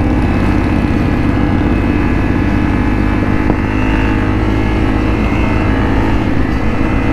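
Motorcycle engines running steadily at a road cruise: the Honda CRF250L dual-sport that carries the camera and a Harley-Davidson with a very loud exhaust.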